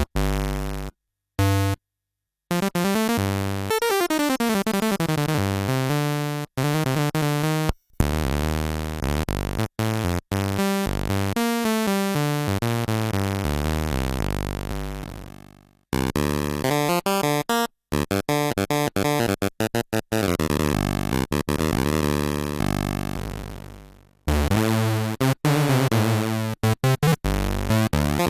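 Yamaha CS01 analog monosynth played dry: runs of short notes and pitch-swept tones rich in buzzy harmonics, with falling pitch glides, brief silent gaps, and two held notes that fade out slowly, one near the middle and one about three-quarters through.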